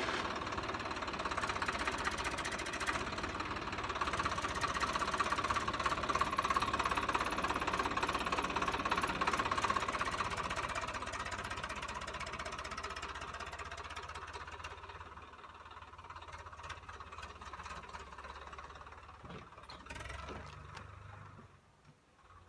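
Swaraj 744 FE tractor's three-cylinder diesel engine running steadily, growing fainter over the second half as the tractor pulls away.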